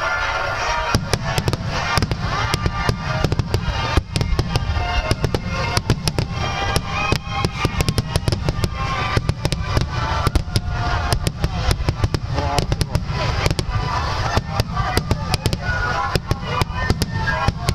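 Fireworks display: a dense, rapid barrage of sharp bangs and crackles that starts about a second in and keeps going, with music playing underneath.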